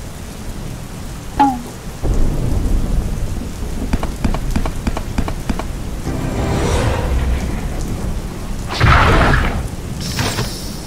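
Rain sound effect with low rolling thunder, swelling louder near the end.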